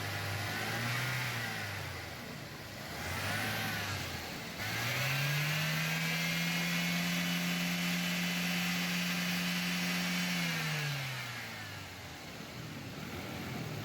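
2010 Toyota Corolla GLI petrol engine being revved with its replaced number-3 ignition coil: two short blips of the throttle, then a longer rev held steady for about six seconds before dropping back to idle.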